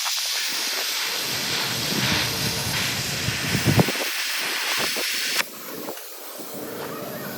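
TIG welding arc hissing steadily while laying a root pass, cutting off abruptly about five and a half seconds in.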